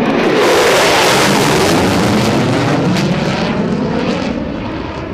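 F-16 Fighting Falcon jet passing close overhead. The engine noise is loudest in the first second or two, then drops in pitch and fades as the jet pulls away.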